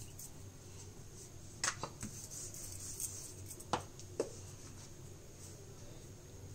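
Wooden rolling pin on a marble rolling board: a few short, sharp clicks and knocks, the last two a little before the middle as the paratha is finished and the pin is put down.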